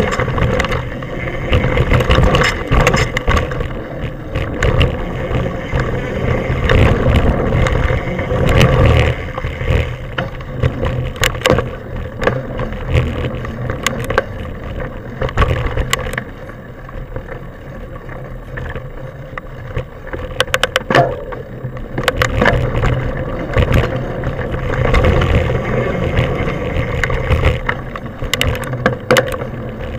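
Mountain bike ridden fast along a dirt forest trail, heard from a mounted camera: a continuous rough rumble of wind and tyres on the trail, with frequent sharp rattles and knocks as the bike goes over bumps.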